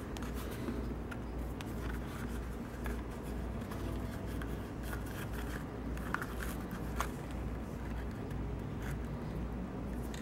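Waxed thread being pulled through the stitching holes of a leather holster during hand saddle stitching: light scraping and rustling, with scattered small ticks from the needles and leather being handled, over a steady low hum.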